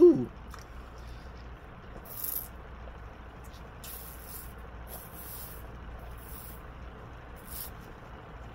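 Lemonade being sucked up through a drinking straw from a plastic cup of ice: several short hissing sips, spread over the seconds, over a faint low background hum.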